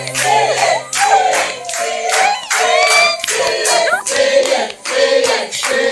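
Voices singing a song over steady rhythmic handclaps, about three claps a second.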